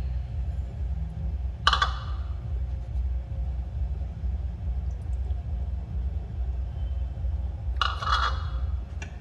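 Two ringing clinks, about six seconds apart, as a glass bowl knocks against a frying pan while water and then milk are poured in, over a steady low hum.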